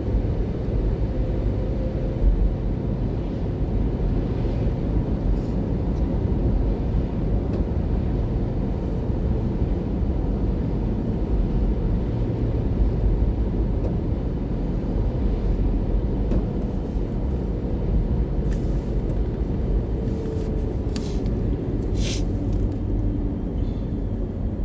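Steady low rumble of a car's engine and tyres heard from inside the moving car on snowy streets, with a few short high-pitched clicks in the last several seconds.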